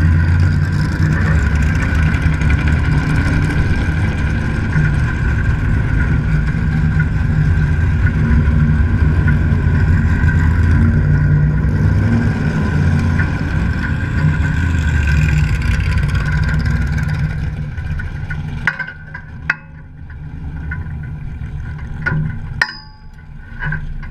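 Modified race car's engine running at low speed, heard from a camera on the hood beside the open air cleaner; about 18 seconds in it drops to a lower, uneven idle, with a few sharp clicks near the end.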